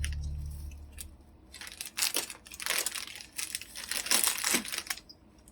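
Low chime from a just-powered-on Apple HomePod dies away in the first second. Then comes a run of crinkling rustles from packaging being handled, loudest about two and four seconds in.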